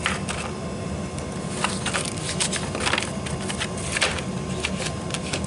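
Items being handled and shuffled in a metal tool chest drawer: scattered light clicks and rustles. A steady low hum runs underneath.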